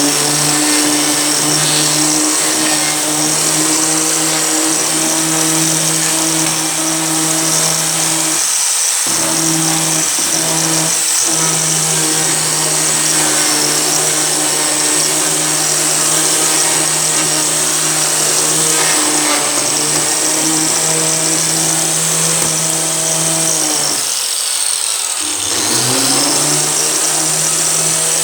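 Four-blade Metabo grinder, rated at 10,500 rpm, running and being worked back and forth over rubber patches, a steady high motor whine with a grinding rasp. The whine dips briefly about a third of the way in, then falls away near the end and rises again as the grinder spins back up to speed.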